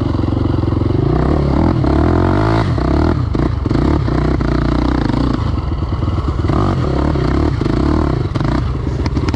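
KTM 525 XC quad's single-cylinder four-stroke engine running hard on a dirt track, its pitch rising and falling several times as the throttle is opened and shut. A few knocks and rattles from the quad going over bumps, most around three seconds in and near the end.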